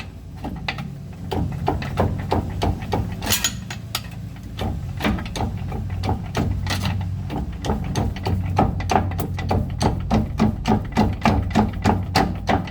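Repeated metallic knocks and clanks as a pry bar works at the driveshaft's rear flange where it joins the differential's pinion yoke. The knocks come faster and more regular in the second half, about two to three a second.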